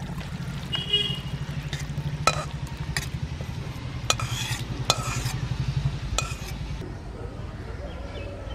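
Thick curry being scooped out of a metal cooking pot into a steel dish: a metal spatula scraping and knocking against the steel about six times, over a steady low hum that stops about six seconds in.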